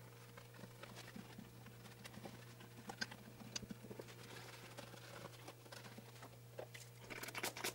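Faint rubbing and scattered light ticks of a cloth rag wiping down a sewing machine, getting busier near the end, over a steady low hum.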